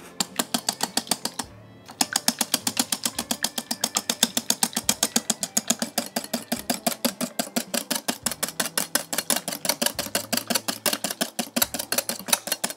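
Wire balloon whisk beating a thick yogurt and egg batter in a glass bowl, its wires clicking against the glass in a quick, steady rhythm of about seven strokes a second, with a brief pause near the start.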